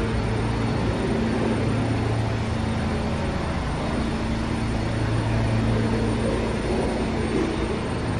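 New York City subway train noise: a steady low hum and rumble with no sudden changes.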